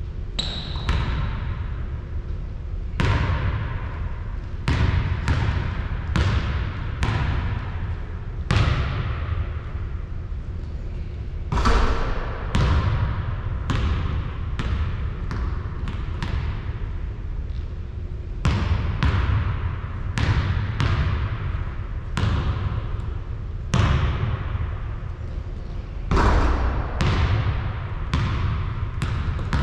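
A basketball bouncing repeatedly on a hard floor in irregular runs, about one to two bounces a second, each bounce trailing off in echo, with a short pause about a third of the way in.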